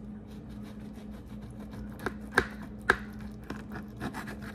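Kitchen knife sawing through a rolled tortilla breakfast wrap on a plate: soft crackling of the tortilla being cut, with a few sharper clicks a couple of seconds in.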